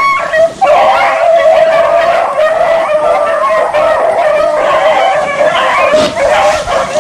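A pack of beagles baying as they run a rabbit, several dogs' voices overlapping in an almost unbroken chorus: the hounds are on the rabbit's scent.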